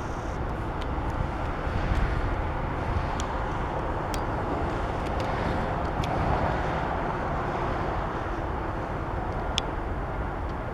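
ChME3 diesel shunting locomotive's six-cylinder diesel engine running with a steady rumble, with a few faint ticks.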